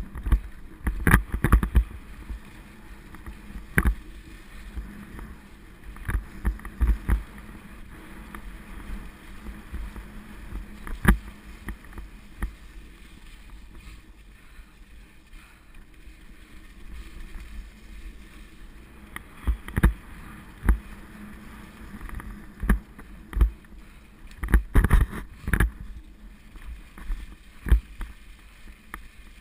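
Mountain bike ridden along a leaf-covered forest singletrack: a steady rush of tyres and wind, broken by frequent knocks and rattles as the bike jolts over bumps, several in quick clusters.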